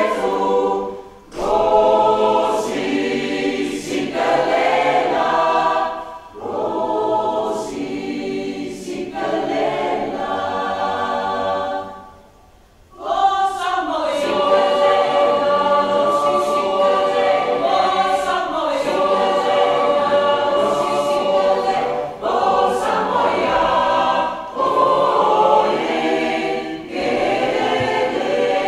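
Mixed choir of men's and women's voices singing in phrases with short breaks, falling silent about twelve seconds in, then coming back in on a long held chord.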